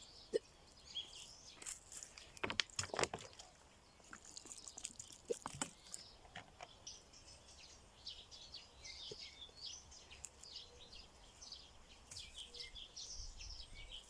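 Small birds chirping and singing in quick high twitters through most of the stretch. A few short knocks and rustles of handling come in the first half.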